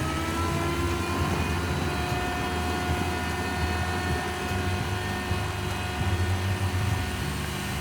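A steady engine-like drone. Its pitch rises over the first second and then holds, over a continuous low rumble.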